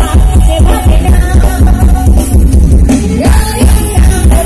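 Dance music blaring from a Thai parade sound truck's (rot hae) loudspeaker system: a heavy, pulsing bass beat and drums under a melody line.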